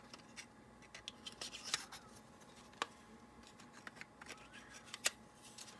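Faint clicks and taps of a plastic model center-beam flat car and its lumber load being handled, the load's glued-in magnets clicking onto the car. There are a few sharper clicks, the clearest about three and five seconds in.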